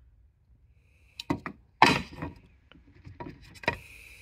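Hard plastic clicking and knocking as a Native Manta Ray 13 kayak's rudder control handle is turned and handled: a quiet first second, then a string of sharp separate knocks, the loudest about halfway through.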